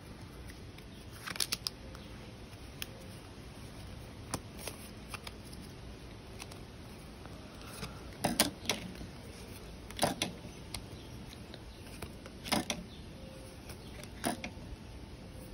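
Pokémon trading cards being handled and flipped through one at a time: short, sharp card snaps and clicks every couple of seconds, the loudest about eight and ten seconds in.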